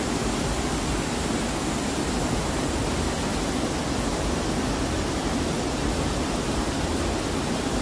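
Storm water pouring steadily through a leaking ceiling and splashing onto tables and the floor, a constant rushing with no break.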